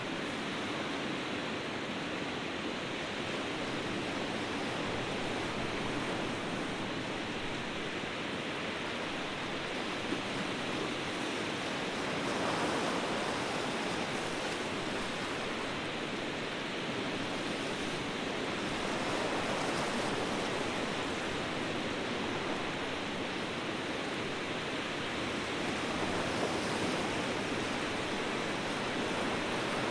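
Ocean surf: a steady wash of breaking waves, swelling slightly about three times.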